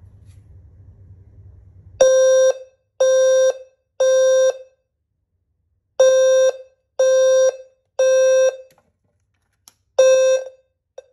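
System Sensor HCWL-LF low-frequency fire alarm sounder on high volume, sounding the temporal-3 (Code 3) evacuation pattern: two groups of three half-second low-pitched beeps with a pause between, then a single beep as the pattern is cut off.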